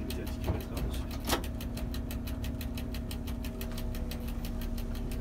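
Vintage diesel railcar running, heard from on board: a steady engine drone and hum with a fast, even ticking about four to five times a second. One sharp knock about a second in.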